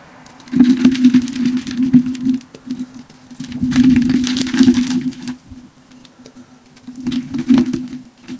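Hands crushing triangular blocks of dyed chalk, crunching and crumbling them to powder in three bouts: about half a second in, again near the middle, and briefly near the end.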